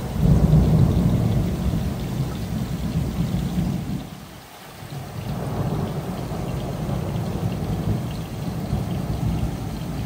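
Thunder rumbling with rain falling; the rumble eases briefly a little under halfway through, then rolls on again.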